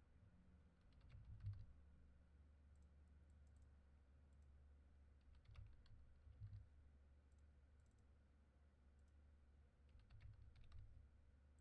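Faint computer keyboard typing in three short bursts about four seconds apart, over a low steady hum.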